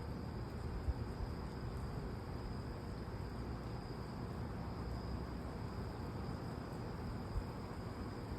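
Crickets trilling steadily at a high pitch in the night, over a low steady rumble of background noise. Two faint bumps come, one about a second in and one near the end.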